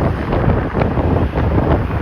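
Strong gusty wind buffeting the microphone outdoors, a loud uneven rumble that rises and falls.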